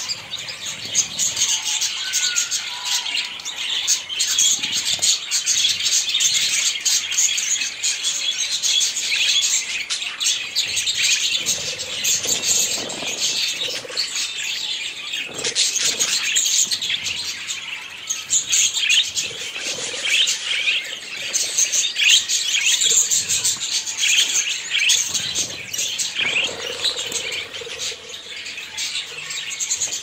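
A group of budgerigars chattering and chirping continuously, many short calls overlapping.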